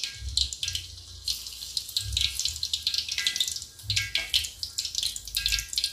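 Hot oil sizzling and crackling around batter-coated rambutans deep-frying in a wok, a dense patter of tiny pops that thickens about a second in, with occasional low bumps underneath.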